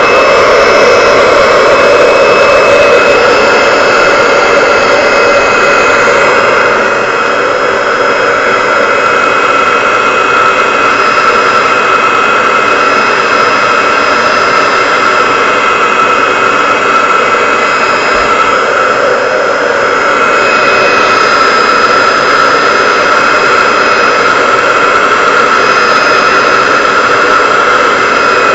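A handheld hair dryer running at its highest heat setting: a steady, loud rush of blown air with a high motor whine over it. It is an old dryer.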